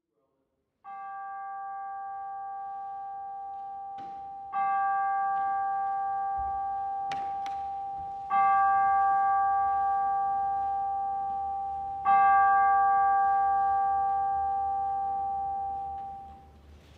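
A bell struck four times, about every four seconds, each stroke ringing on the same clear note and fading slowly until the next. The first stroke is softer than the rest, and the last rings out and fades just before the end.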